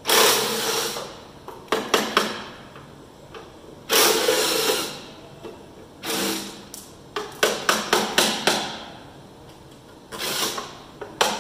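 Cordless impact wrench running in four bursts of about a second each, backing out the bolts that hold a Massey Ferguson combine's steering column. Short, sharp metal clicks and knocks come between the bursts.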